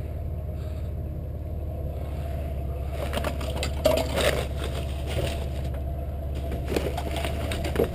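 Plastic trash bags and refuse in a metal dumpster rustling and crinkling as gloved hands push through them, starting about three seconds in, loudest around four seconds. Under it runs the steady low hum of an idling vehicle.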